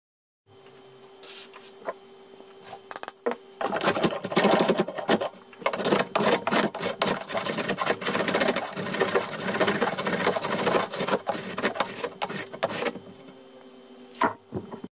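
Homemade plywood hand plane shaving a board in quick repeated strokes, a dense scratchy rasping from about four seconds in until near the end, with a few knocks of the plane against the wood before and after.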